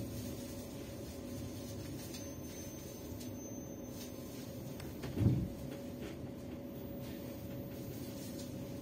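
Steady hum inside a passenger train carriage standing at a station, with a faint steady whine running through it. A single dull thump about five seconds in is the loudest sound.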